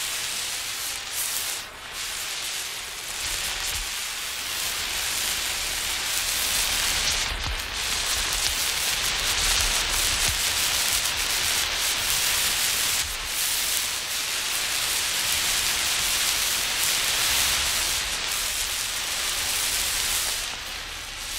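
Burning emergency road flare hissing and sputtering steadily as it is moved about, with brief dips in the hiss every few seconds.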